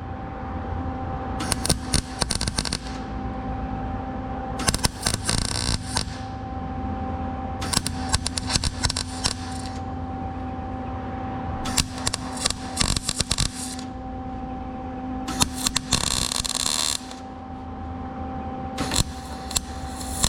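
A welder stitch-welding a car's sheet-metal firewall in short bursts: six crackling runs of one to two seconds each, a few seconds apart, over a steady hum.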